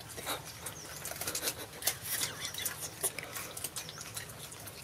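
Long-tailed macaques eating at close range: quick, irregular wet clicks of chewing and lip-smacking, with a few faint, short high chirps.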